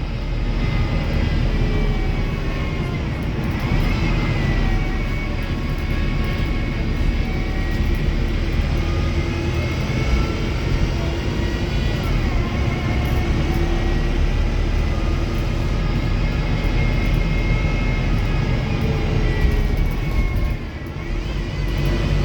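Wrightbus StreetDeck HEV hybrid bus under way: its Mercedes-Benz OM934 diesel gives a steady low drone, and several whining drivetrain tones glide up and down as the bus speeds up and slows. The noise eases off briefly near the end.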